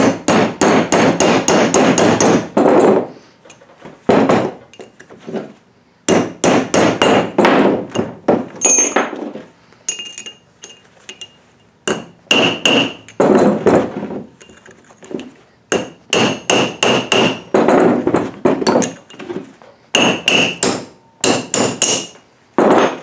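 Hammer striking a chisel wedged between a rear-axle pinion gear and its pressed-on inner bearing, in quick runs of ringing metal-on-metal blows, about five a second, with short pauses between runs. The blows are driving the bearing off the pinion shaft.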